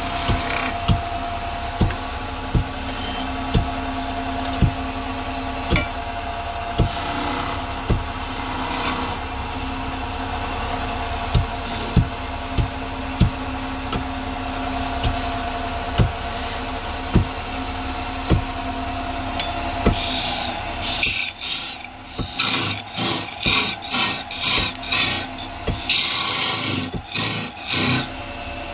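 Wood lathe running with a steady hum while a turning tool works the wood, with a sharp knock about once a second. About two-thirds of the way in, the lathe's hum drops away and a run of quick rasping strokes on wood follows.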